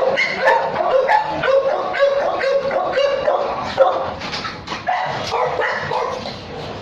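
Several kennelled dogs barking and yelping over one another, a grey American Bully at the cage bars among them.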